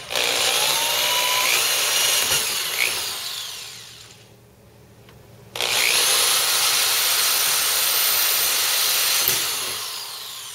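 Corded electric drill boring two holes down through the model railroad layout's roadbed, in two runs of a few seconds each with a short pause between. The motor winds down at the end of each run.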